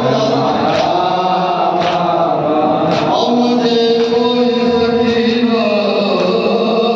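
Men chanting a noha, a Shia lament, in a slow sustained melody, with sharp slaps about once a second, typical of mourners' chest-beating (matam) keeping time.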